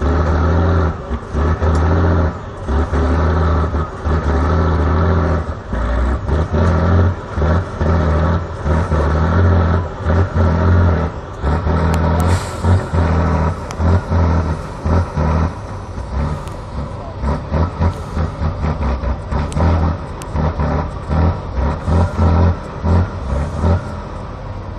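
Diesel engine of an off-road trial truck working hard under load on a steep climb, revving up and dropping back again and again. From about halfway on, the throttle comes on and off in short, quick bursts.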